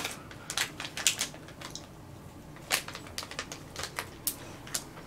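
Plastic gummy-candy bag crinkling, with irregular sharp crackles and clicks as it is handled.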